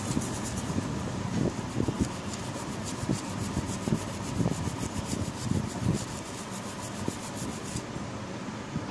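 A brush scrubbing a water-damaged phone logic board in quick repeated strokes.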